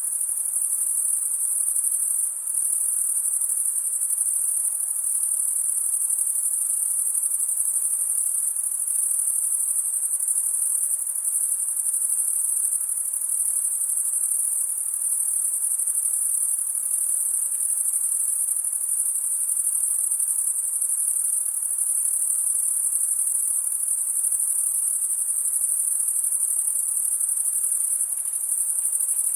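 A dense night chorus of crickets: a steady, very high-pitched trill that keeps on without a break, dipping briefly about two seconds in.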